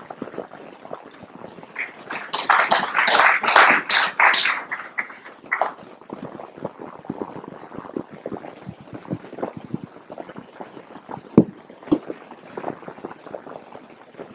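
Audience applauding for about three seconds, then scattered light knocks and shuffling, with one sharper knock about eleven seconds in.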